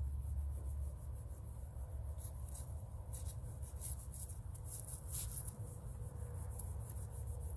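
Hand-scrubbing of a fabric yurt window: faint, irregular rubbing and scratching strokes, busiest in the middle, over a steady low rumble.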